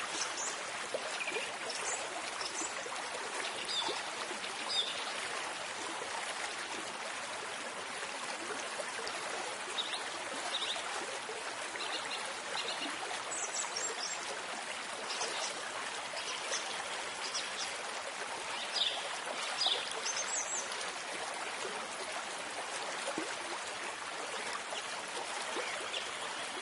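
Stream water running steadily, with brief high chirps here and there.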